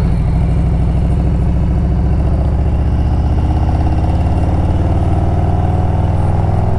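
Harley-Davidson CVO Road Glide's Milwaukee-Eight 117 V-twin running under way with a deep, even exhaust pulse. About halfway through it pulls harder and rises steadily in pitch as the bike accelerates.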